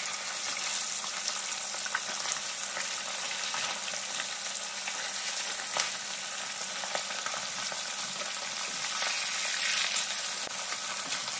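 Whole marinated sea bass shallow-frying in hot oil in a cast iron wok: a steady sizzle with scattered small pops and crackles.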